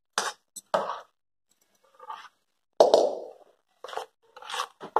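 A steel spoon stirring coarse, dry-ground pickle masala and mustard oil in a plastic tub: a handful of short, irregular scraping strokes, the loudest about three seconds in.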